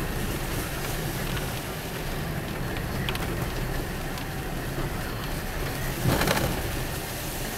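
Steady in-car road noise from a moving car: engine and tyres running on a wet road, heard inside the cabin, with a brief louder rush about six seconds in.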